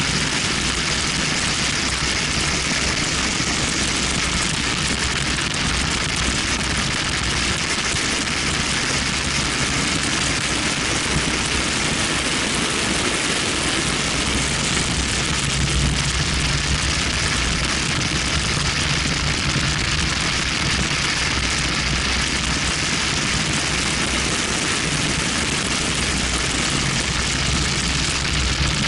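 Steady rush of wind and road noise at track speed on a camera mounted outside a BMW 1M, with the car's engine running low underneath.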